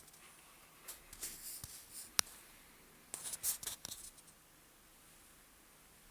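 Light handling noises: short scrapes and clicks in two clusters, one about a second in and one about three seconds in, with a single sharp click just after two seconds.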